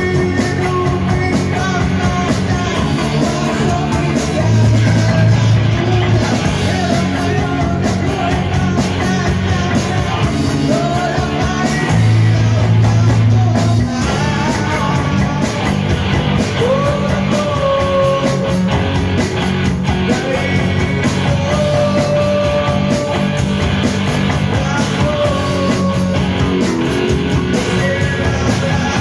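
A live rock band playing loudly: electric guitar and drums, with a singer on a microphone.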